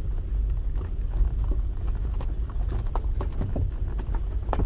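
Footsteps of a person walking through a dry maize field, with irregular crunching and rustling steps over a steady low rumble.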